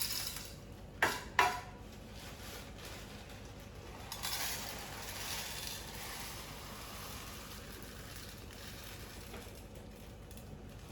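Granular activated carbon poured into a filter bag, a hissing rattle of pellets that starts about four seconds in and slowly tapers off. Two sharp handling sounds come about a second in.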